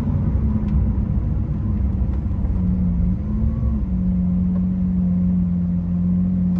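Lamborghini Aventador SV's V12 engine heard from inside the cabin, running at low revs as the car slows and the automated gearbox steps down from third to second to first. There is a brief rise in engine pitch a little past halfway, then a steady low hum near idle.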